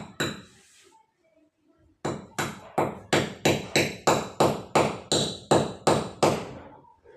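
Hammer driving a nail into a wall: two blows, a short pause, then a steady run of about a dozen blows, roughly three a second.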